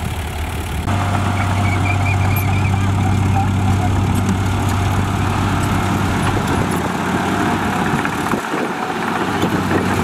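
Komatsu D58P bulldozer's diesel engine running steadily with a low hum as the dozer moves on its tracks; the sound jumps abruptly louder about a second in.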